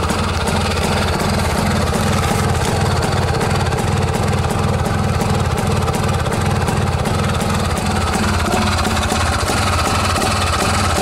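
IZh Planeta motorcycle's single-cylinder two-stroke engine idling steadily after a cold start in hard frost, with an even, rapid exhaust beat. The owner says it is running as an ordinary Planeta should.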